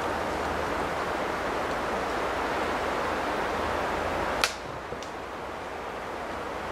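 Steady outdoor rushing noise with a single sharp snap about four and a half seconds in, after which the rushing turns quieter; a faint tick follows half a second later.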